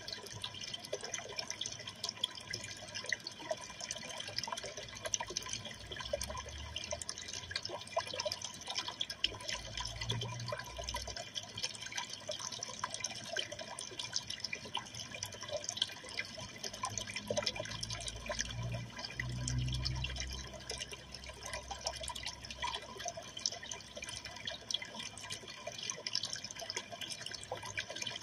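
Aquarium water trickling and splashing steadily, with many small drip-like plinks. A brief low rumble comes about ten seconds in, and again near twenty seconds.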